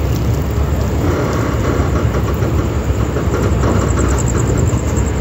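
Passenger express train pulling out of a station at low speed: a steady low rumble of the coaches and wheels on the rails, with faint clicking over the track from about a second in.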